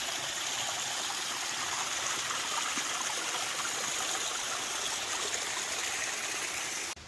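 Rain-swollen mountain stream rushing over rocks: a steady hiss of running water that cuts off suddenly near the end.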